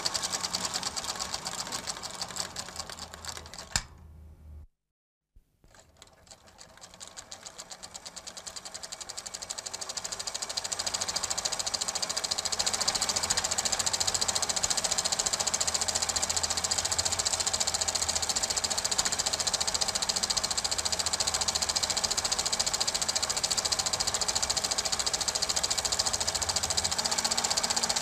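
Super 8 film projector running, a rapid steady mechanical clatter. It fades out about four seconds in, stops for under a second, then fades back in over the next several seconds.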